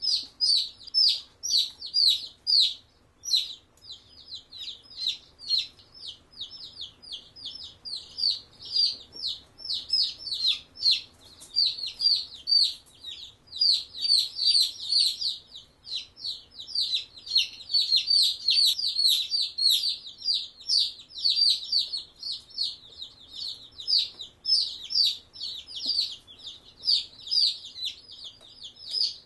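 Black Australorp chicks peeping continuously: many short, high peeps that slide down in pitch, several a second from several chicks at once.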